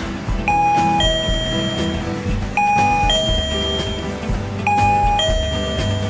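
KERUI M525 wireless doorbell receiver ringing a two-note ding-dong chime, a higher note then a lower one, three times about two seconds apart.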